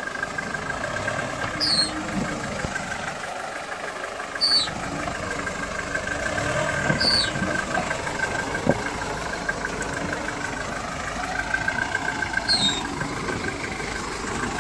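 Toyota Land Cruiser 40-series engine running at low revs as the truck crawls over rocks on a dirt trail and comes past close by, with a steady high whine throughout.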